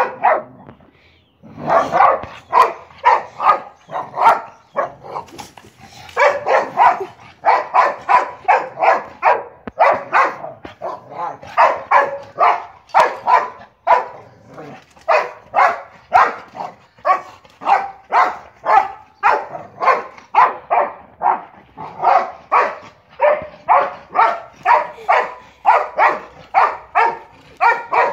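A boxer dog barking over and over in a rapid, steady string, about two barks a second, with one short pause about a second in.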